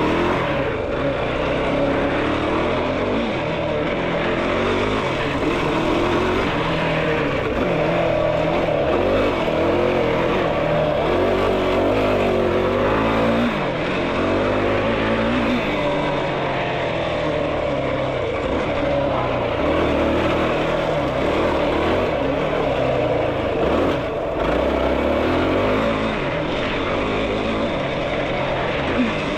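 Yamaha YFZ450R sport quad's single-cylinder four-stroke engine revving up and down continuously while being ridden on a dirt trail.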